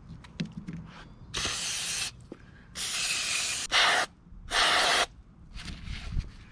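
A can of CRC Brakleen brake cleaner sprayed through its straw into an open trolling-motor housing in four short hissing bursts, flushing out the grime. A few light clicks of metal parts being handled near the end.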